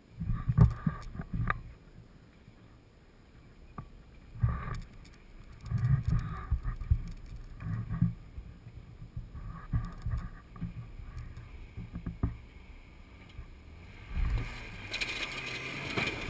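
Lifted rock-crawling truck's engine revving in short, irregular bursts as it works over boulders. About 15 seconds in the sound grows fuller and louder as the truck climbs a large rock, kicking up dust.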